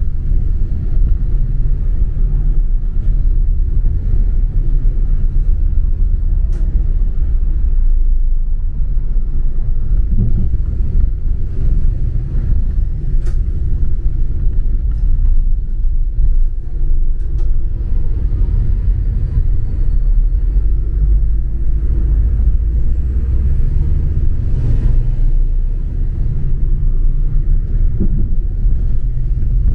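Double-decker bus in motion, heard from on board: a steady low rumble of engine and road noise, with a few faint clicks.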